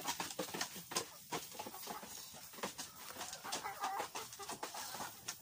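Rhode Island Red chickens clucking as they crowd close, among many short sharp clicks. The clucking is busiest about three and a half seconds in.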